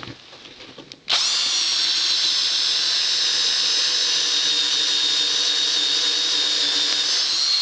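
A 14.4-volt Mastercraft cordless drill starts about a second in and runs steadily with a high whine, driving a bit into a block of wood. It is powered by a dead nicad battery pack brought back to life by zapping it with a welder.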